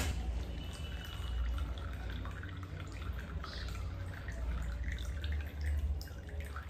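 Muddy water squeezed through a small inline water filter, trickling and dripping from its outlet into a disposable plastic cup, over a steady low hum.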